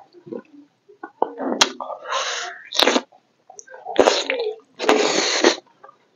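A person eating by hand close to the microphone: wet chewing, lip-smacking and slurping, in several noisy bursts, the loudest about four and five seconds in as a handful of food goes into the mouth.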